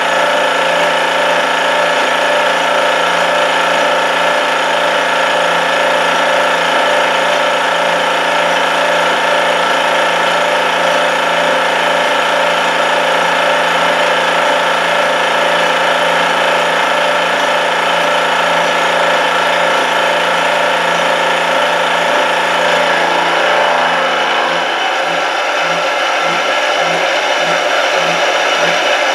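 25 mm APMT 1003 indexable carbide-insert end mill cutting steel on a CNC mill, a steady whine of spindle and cutting, taking a 1 mm deep cut at 125 mm per minute. Near the end the sound changes and a low pulsing of about two beats a second sets in.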